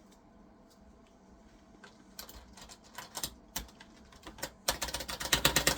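Computer keyboard keys clicking: a few scattered clicks, then a fast run of clicks near the end.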